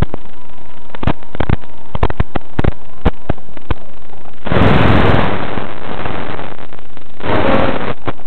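Crackling static from an analog 5.8 GHz FPV video link: irregular sharp pops a few times a second, with two bursts of loud hiss about four and a half and seven seconds in, each lasting under a second.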